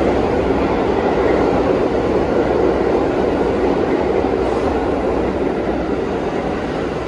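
New York City subway train running past the station platform, a steady loud rumble of wheels on rails that eases slightly near the end.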